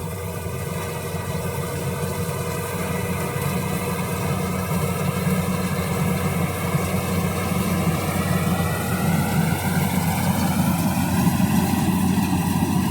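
Rice combine harvester's engine running steadily, growing gradually louder.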